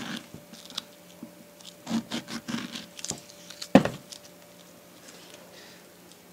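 Small knife scoring raw green figs in a cross: scattered soft cutting and scraping clicks, with a sharp knock a little before four seconds in.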